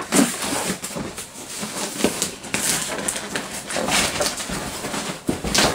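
Packing tape on a cardboard shipping box being cut and the flaps pulled open: a steady run of scraping, tearing and rustling of cardboard.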